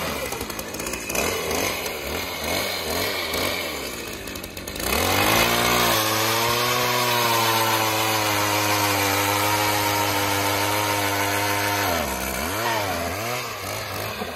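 Gas-powered ice auger's small engine drilling through lake ice. It revs unevenly up and down for the first few seconds and dips. About five seconds in it climbs to a steady high pitch held for about six seconds, then wavers and slows again near the end.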